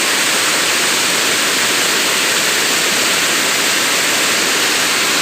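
Steady, loud rush of a waterfall pouring down a rocky slope, swollen by rain.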